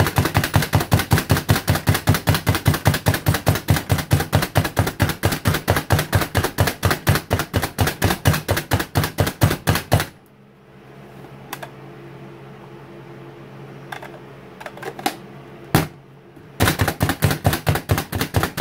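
Plunger-style hand food chopper mincing garlic: rapid clacking, about five strokes a second, for about ten seconds. Then a pause with a few single clicks, and another fast run near the end.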